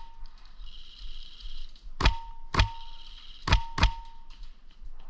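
Airsoft gun firing four shots in two quick pairs, the first pair about two seconds in and the second about three and a half seconds in. Each shot is followed by a short ringing tone.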